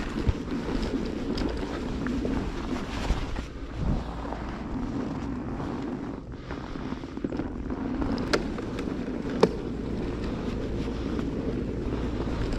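Wind buffeting a camera microphone on a moving bicycle: a steady rumbling noise with a few sharp clicks, the loudest about nine seconds in.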